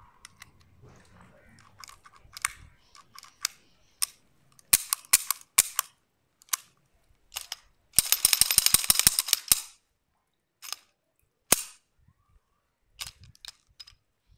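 Sharp metallic clicks and clacks of a Zigana semi-automatic pistol being handled and field-stripped. About eight seconds in, a dense rattling scrape lasts about a second and a half as the slide is run along the frame rails and off the frame, followed by a few single clicks.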